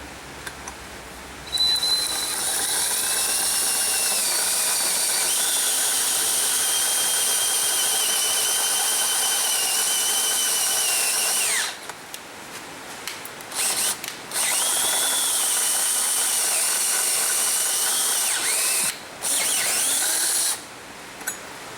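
Electric drill running a large bit into a stripped engine/transmission mount bolt hole, drilling it out for a Big-Sert thread insert: a high-pitched motor whine that runs for about ten seconds, stops, then comes back in a short blip and two more runs with a brief pause between them, its pitch sagging and recovering as the bit bites.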